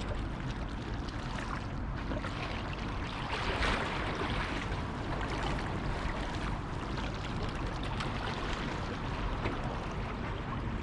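Sea water lapping at the harbour edge, a steady low wash.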